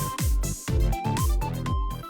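Electronic background music with a steady kick-drum beat and sustained synth tones.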